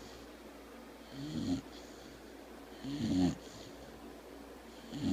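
Sleeping dog snoring, low pitched snores repeating about every second and a half to two seconds: two full snores, and a third starting near the end.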